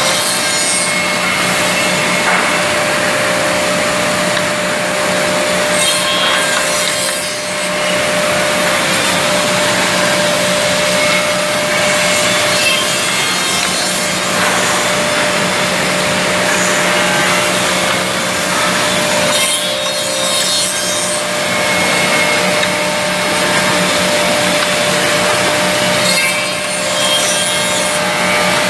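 Woodmaster WM-200B double-end CNC tenoning machine running. Its two spinning cutter heads mill tenons onto the ends of wooden pieces, with a louder cutting pass about every six to seven seconds over a steady motor hum.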